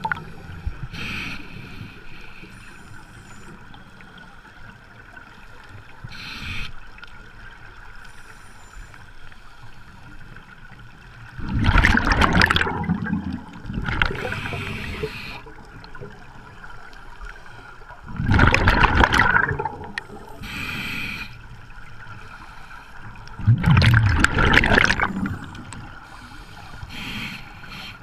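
Scuba regulator breathing heard underwater: three loud rushes of exhaled bubbles several seconds apart, with shorter hissing inhalations between them.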